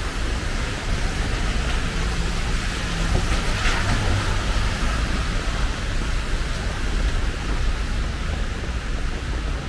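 Heavy rain falling steadily, an even hiss over a deep low rumble, with a brief louder swell of hiss about three and a half seconds in.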